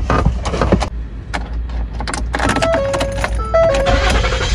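Clicks and knocks of someone settling into a car's driver's seat, over a low steady rumble from the car. Background music with a melody comes in about halfway through.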